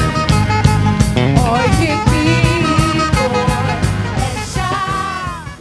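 Worship band with drums and a sung voice playing, with a steady beat; the music fades out at the end.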